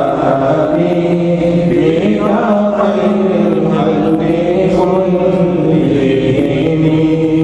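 A man's voice chanting Islamic devotional verse unaccompanied, holding long notes that slide from one pitch to the next.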